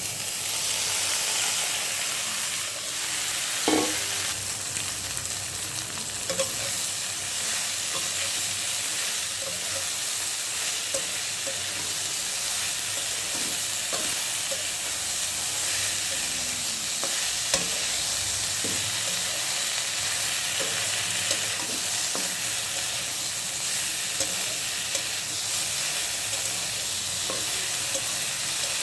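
Honey greens (madhu shak) frying in a pan: a steady sizzle that comes up suddenly at the start, with scattered clicks and knocks of a spatula stirring them, one louder knock about four seconds in.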